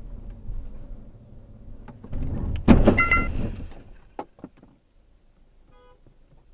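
Low road and engine rumble of a car braking hard to a stop, with a sudden loud thump a little under three seconds in, followed by a brief high tone. The sound falls away to quiet as the car stands still.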